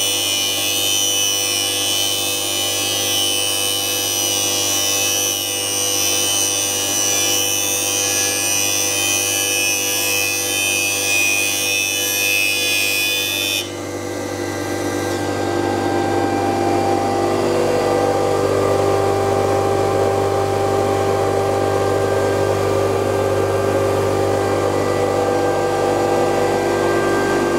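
CNC pipe-threading machine running, with steady motor whine under a loud high hiss of cutting. About halfway through the hiss cuts off suddenly, and the motor hum carries on and grows.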